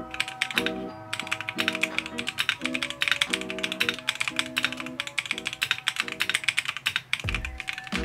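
Fast typing on a Dareu Z82 mechanical keyboard with round keycaps: a quick, dense run of keystroke clacks.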